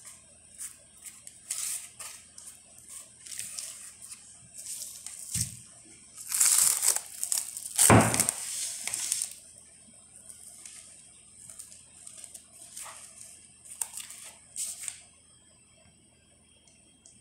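Plastic cling film crinkling and crackling as it is pulled from its roll and stretched over a bowl of dough. The crackling is loudest and densest about halfway through, with a bump among it, then fades to lighter crinkles.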